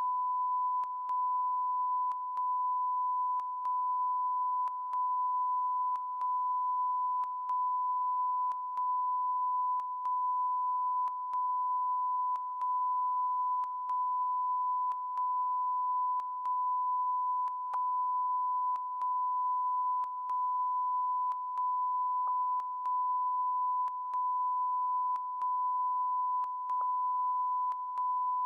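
Continuous electronic beeping tone: one steady high note with a short dip and faint click about every second and a quarter, stuck on a TV news broadcast's sound as a transmission fault.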